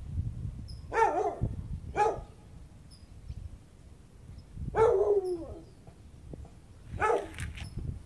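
A dog barking four times, the third bark longer and falling in pitch, over a low rumble of wind on the microphone.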